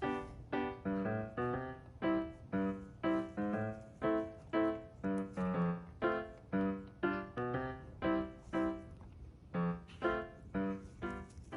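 Background music: a light piano melody of single struck notes, about two a second, each fading before the next.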